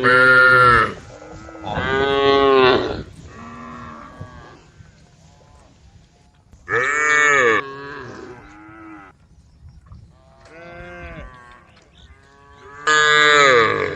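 Cattle mooing repeatedly: four loud moos about a second long, with fainter moos between them.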